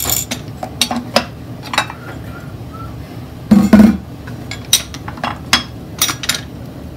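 Metal fork clinking and tapping against ceramic dinner plates as fried pork chops are moved and plated, about a dozen separate clinks. A heavier, duller knock comes about halfway through.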